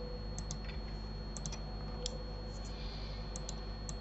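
Computer mouse and keyboard clicks: about ten short, light clicks, several in quick pairs or threes, over a steady faint electrical hum.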